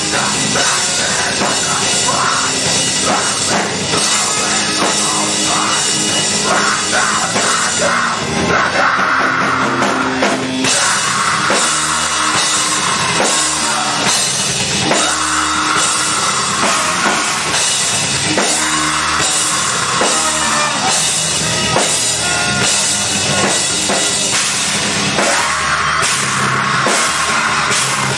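Live heavy rock band playing loud: electric guitar, bass guitar and a drum kit, heard from the audience.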